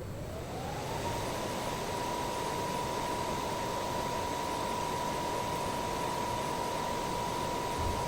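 Electric power tool motor spinning up over about a second to a steady high whine, with a loud hiss alongside.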